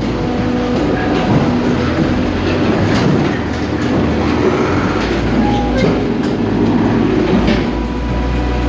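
Heavy machinery running hard: a steady engine tone under continuous clattering and knocking, as of a firewood processor at work.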